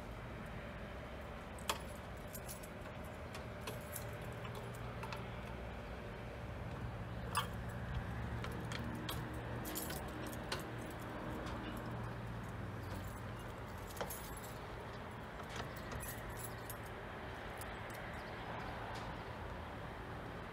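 Diesel locomotive hauling a track-maintenance train slowly past, its engine running with a low steady hum that swells as it draws near, with scattered sharp metallic clicks and clinks from the wheels and wagons.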